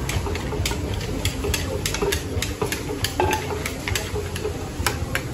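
Wooden pestle pounding in a clay mortar while a spoon turns the salad: an irregular run of sharp knocks, about four a second, over a steady low hum.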